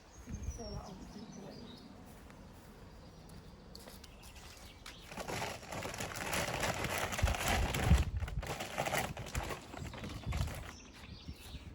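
Birdseed being handled, a dense rattling rustle that starts about five seconds in, swells and fades near the end. A few faint bird chirps at the start.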